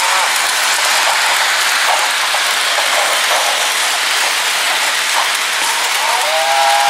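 Sound effects from the onboard sound unit of a Broadway Limited HO-scale cattle car, played through its small speaker with no bass: a steady hiss of rolling freight-car noise with a few faint clicks, and a cow mooing near the end.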